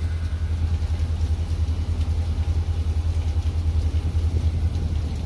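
Rainstorm: a steady low rumble with a faint hiss of rain above it.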